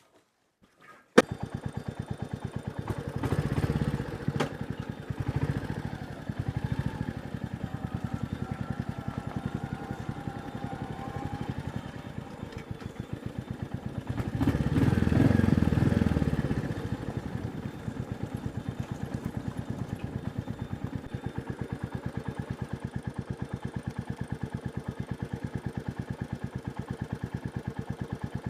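Royal Enfield Meteor 350's single-cylinder engine running under way, with a quick even beat. It opens up briefly a few times, most strongly around the middle, then settles to a steady, lighter throttle for the second half. A sharp click about a second in follows a short silence at the start.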